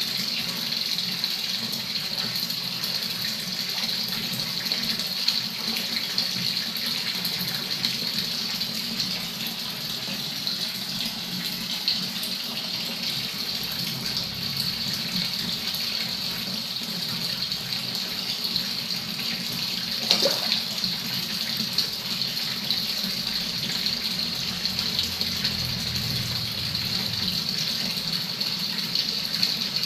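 Water pouring steadily from a tap on a pipe into a shallow tiled pond, a constant splashing hiss. There is one short knock about two-thirds of the way through.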